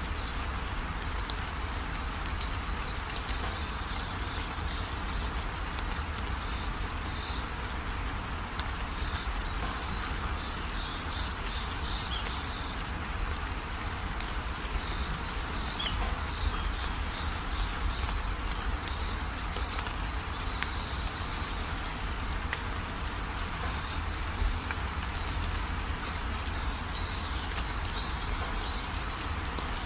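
Steady rain-like hiss with high chirping trills recurring every few seconds, like an ambient nature soundscape.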